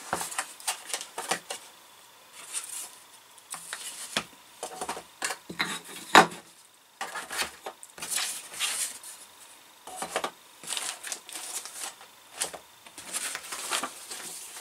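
Handling and packing noises: paper sheets and plastic bags rustling and wooden kit parts clicking and knocking as they are put back into a cardboard box, with one louder knock about six seconds in.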